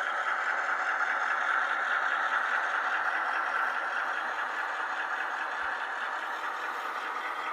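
HO scale model train running past on the layout track: a steady rolling and mechanical running sound of the hopper cars and diesel locomotive, swelling slightly early and then slowly easing.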